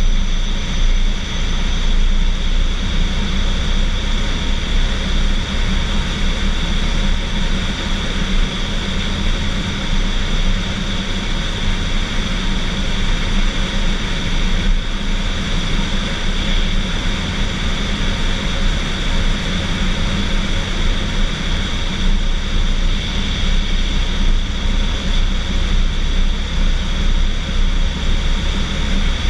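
Steady vehicle noise from a 2015 Toyota Tacoma pickup running: an even low rumble with a constant hiss over it, unchanging throughout.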